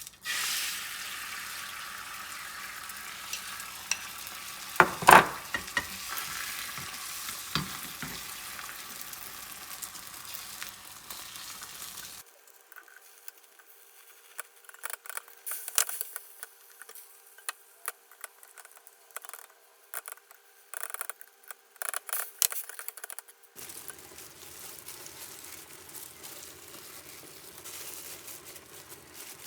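Food sizzling in a hot frying pan as it is stirred, with one loud clank of a utensil against the pan about five seconds in. About twelve seconds in the sizzle stops and scattered clicks and taps of cookware follow, then a softer steady hiss returns near the end.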